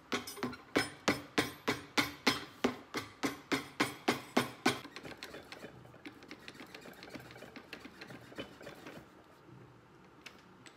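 Cobbler's hammer tapping a leather boot sole in a steady rhythm of about three sharp blows a second for nearly five seconds. Softer, quicker clicking follows until about nine seconds in.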